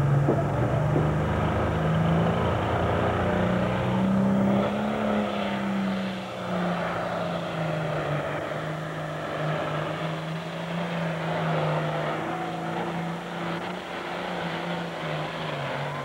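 Super Farm class pulling tractor's diesel engine running flat out under heavy load as it drags the pulling sled. Its pitch climbs a little about four to five seconds in, then drops back and holds steady.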